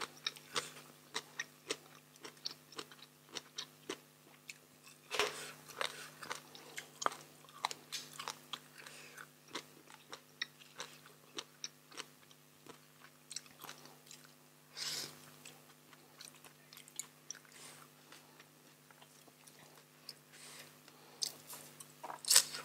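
Close-miked chewing and biting of papaya salad and crisp raw vegetables: a run of small wet clicks and crunches, louder about five seconds in, around fifteen seconds, and again near the end. A faint steady hum lies beneath.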